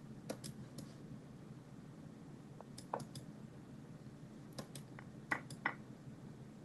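Faint, sharp clicks in small groups of two or three, a computer mouse clicking as chess moves are made in an online blitz game, over a low steady hum.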